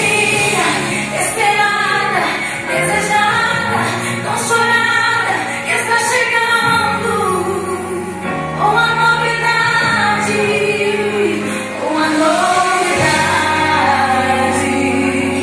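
Recorded Christian worship song: a woman singing a melody over held bass notes that change every couple of seconds.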